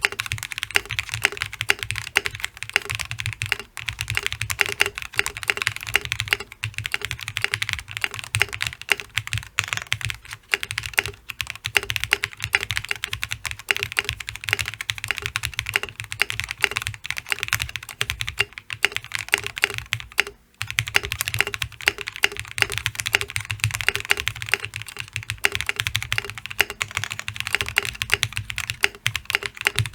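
Continuous fast typing on a Space65 custom mechanical keyboard with Krytox-lubed Durock POM switches, an FR4 plate, case foam and Infinikey keycaps. It is many keystrokes a second with a short pause about two-thirds of the way through.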